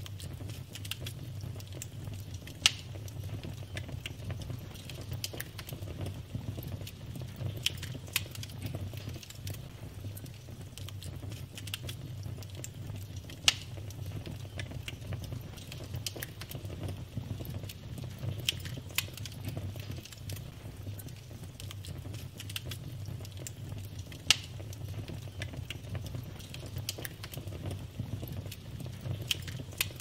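Wood fire of burning logs crackling: a steady low rumble with frequent small pops and ticks, and three sharper, louder pops spread through, roughly ten seconds apart.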